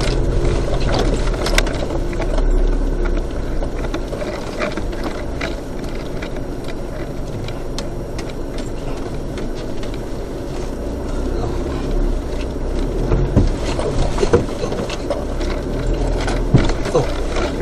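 Vehicle driving slowly over a bumpy dirt track, heard from inside the cabin: a steady engine and tyre rumble with scattered knocks and rattles as it rides over the ruts, more of them near the end.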